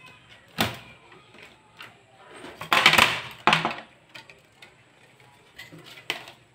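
Handling noise on a workbench as the monitor's LCD panel and metal chassis are moved about: scattered knocks and clicks, with a loud, noisy scrape lasting about a second near the middle.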